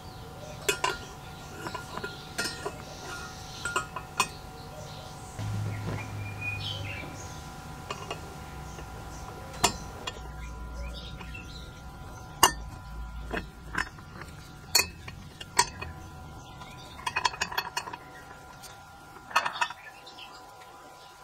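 Metal parts of a kerosene stove clinking and tapping as they are handled and fitted together: a brass fuel tank set into a black steel stand, then a steel ring clicking onto the stand's legs. Irregular sharp clinks, several in a row, with quieter scrapes between them.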